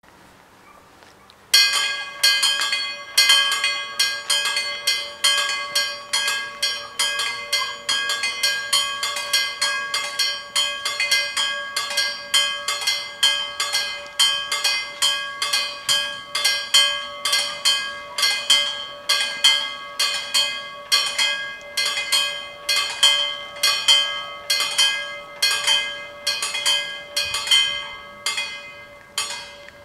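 Level-crossing warning bells ringing in a rapid, even series of strikes, warning that a train is approaching. They start about a second and a half in and stop shortly before the end.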